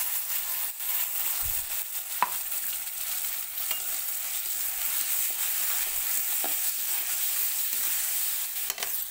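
Freshly added masala paste sizzling in hot oil with fried onions in a kadai, stirred with a spatula. A steady frying hiss runs throughout, with a few brief scrapes of the spatula against the pan.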